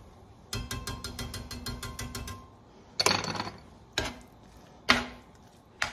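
A wire whisk clicking rapidly against a cast iron skillet while stirring thick cheese sauce, about eight clicks a second for a couple of seconds. Then four single sharp metal knocks on the pan, about a second apart.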